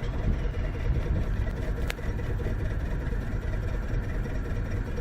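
1996 Toyota RAV4's four-cylinder engine idling steadily with the hood open; the engine has a misfire on cylinder four (code P0304).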